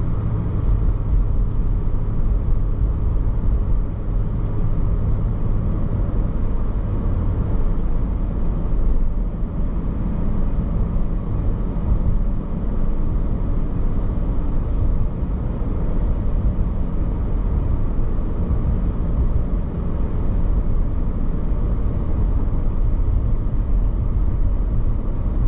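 Steady car cabin noise while driving: low engine and tyre rumble on the road, unchanging.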